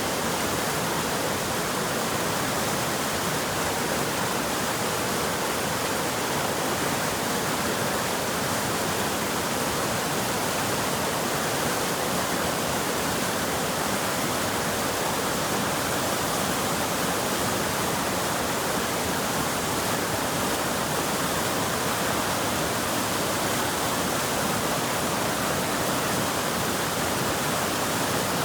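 Creek water rushing over whitewater rapids: a steady, even roar of churning water.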